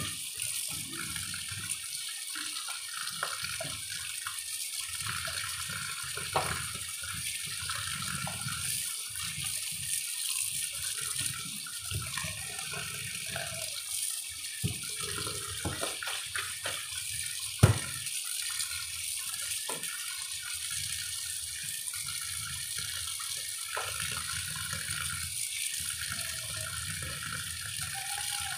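Tap water running into a stainless steel sink, splashing as mushrooms are rinsed and rubbed by hand in a plastic colander. Occasional small knocks come from the colander against the sink, with one sharper knock a little past the middle.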